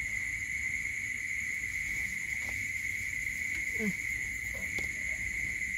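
Night insects, likely crickets, trilling in one steady high-pitched drone. About four seconds in there is a brief falling sound.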